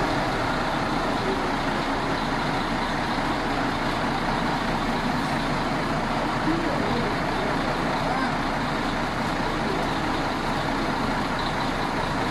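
Forklift engine running steadily.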